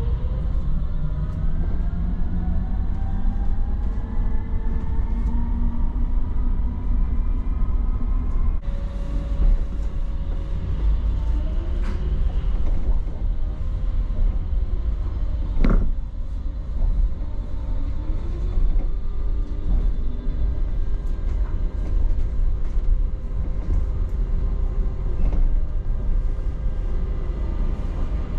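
Optare MetroDecker EV electric double-decker bus running, heard from inside the bus: a steady low rumble with the traction motor's whine rising in pitch as the bus pulls away, then a shorter rising whine later. A single sharp knock comes about halfway through.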